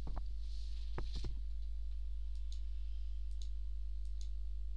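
Computer mouse buttons clicking: a few sharp clicks near the start and about a second in, then lighter ticks, over a steady low electrical hum.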